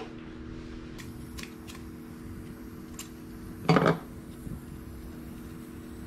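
A butane soldering iron being handled and lit: a few light clicks and a short, louder rush about four seconds in, over a steady low hum.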